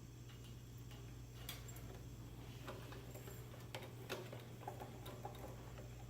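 Scattered light clicks and ticks of nylon cable ties being fastened and pulled snug, over a steady low hum.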